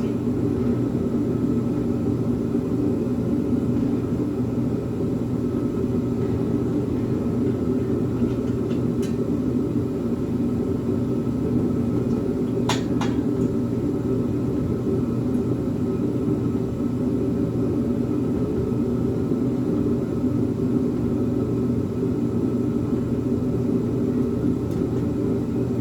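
Steady low drone with no change in level, with one sharp click about thirteen seconds in.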